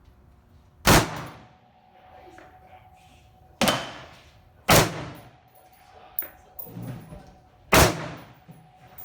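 Four sharp, loud cracks with irregular spacing, each followed by a short decay and a steady metallic ring.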